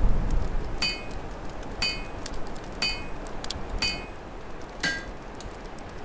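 Metal striking metal five times at an even pace of about once a second, each strike ringing briefly; the first four ring alike and the last is lower. Fine crackling and a low wind rumble run beneath.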